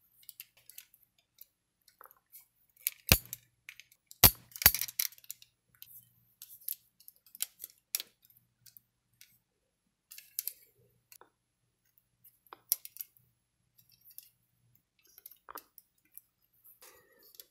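Plastic and metal parts of a Metal Composite Zeta Plus action figure clicking and knocking as the figure is handled and transformed into its Waverider mode: scattered sharp clicks, the three loudest about three to five seconds in.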